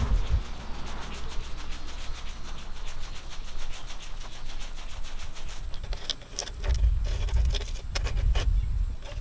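Wind buffeting the microphone outdoors, with light footsteps on grass. Near the end come small clicks and rustles as a thin plastic funnel trap is handled.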